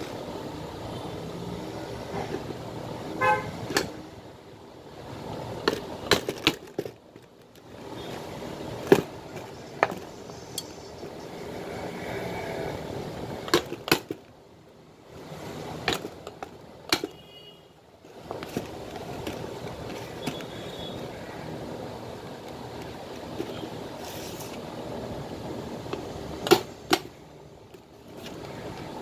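Hammer blows on a steel spike held against the leather upper of a steel-toe safety shoe: a dozen or so sharp metal strikes at irregular intervals, some in quick pairs, over a steady background hiss.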